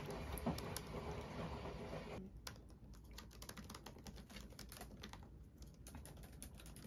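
Typing on a MacBook Pro laptop keyboard: quick, irregular key clicks. A faint background noise under the clicks drops away about two seconds in.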